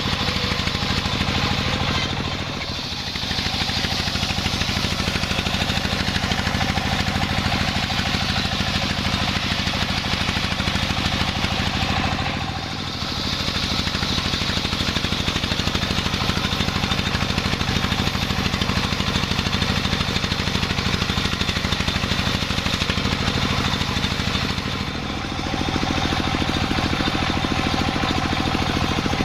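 Engine-driven sawmill saw running steadily, with three brief dips in loudness.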